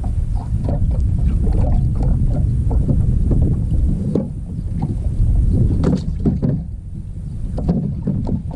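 Low rumbling noise with irregular knocks and splashes, as of a small boat out on the water with wind on the microphone.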